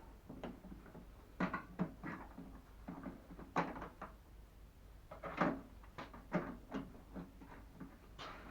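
Irregular knocks, clicks and light clatter of microwave oven parts and tools being handled during disassembly, with a few louder knocks.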